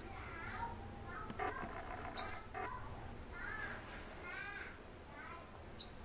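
Sunbird giving short, sharp, high chirps, three times: at the start, about two seconds in, and near the end. Softer, lower chattering bird notes run between them.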